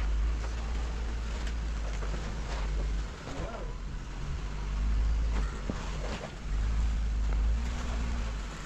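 Jeep Wrangler engine running at low revs while crawling over rock, a deep rumble that swells and eases as it goes.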